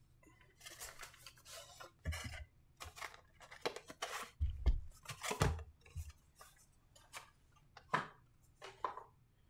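A cardboard trading-card box and its foil packs being handled and opened by hand: short bursts of rustling and scraping, with a few dull thumps about two, four and a half, and five and a half seconds in.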